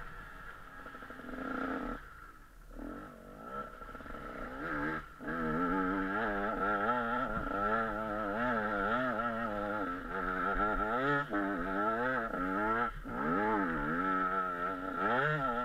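KTM 125 SX two-stroke single-cylinder motocross engine under riding. It is lower and quieter for the first few seconds, with a brief drop off the throttle, then revs up and down over and over as the rider works the throttle from about five seconds in.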